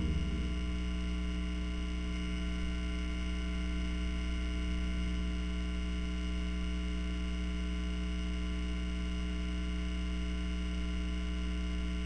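Steady electrical mains hum with a buzz of many overtones.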